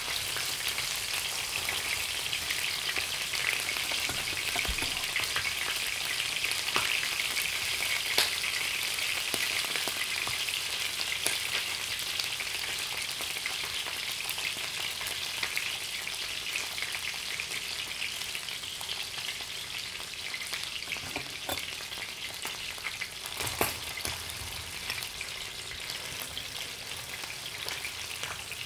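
Salmon heads sizzling as they fry in a pan, a steady crackling hiss with a few sharp clicks scattered through it, easing off slightly toward the end.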